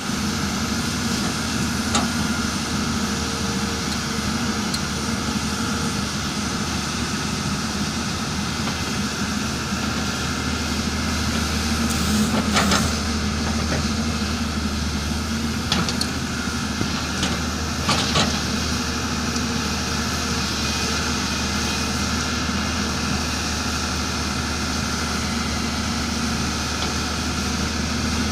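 Diesel engine of an earthmoving machine (backhoe loader or excavator) running steadily, with a few brief knocks about halfway through.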